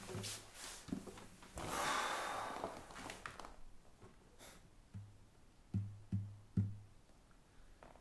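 A man sitting down on a leather sofa with an acoustic guitar: a rustle of clothes and upholstery about two seconds in, then a handful of short low knocks from the guitar, each with a brief boom from its body, between five and seven seconds in.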